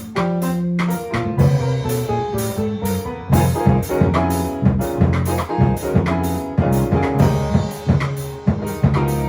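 Live instrumental Latin-jazz performance: a drum kit keeps a steady groove of sharp strokes over low bass notes and chords.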